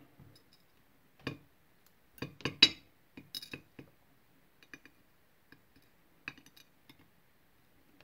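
Tweezers setting small lock pins and springs down in a metal pinning tray: a scatter of light metallic clicks and clinks, densest and loudest between two and three seconds in, then sparser small ticks.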